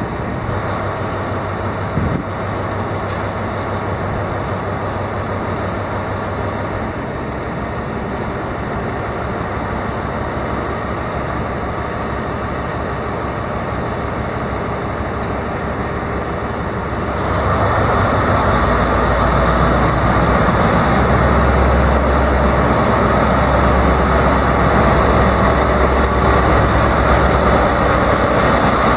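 British Rail Class 43 HST power car's diesel engine ticking over steadily, then, about seventeen seconds in, opening up louder and deeper as the train pulls away. A single knock about two seconds in.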